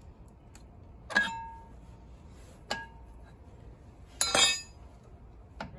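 Metal clinking as steel-backed brake pads are fitted into a Unimog's front brake caliper: several separate clinks, some ringing briefly, the loudest a rattling double clink about four seconds in.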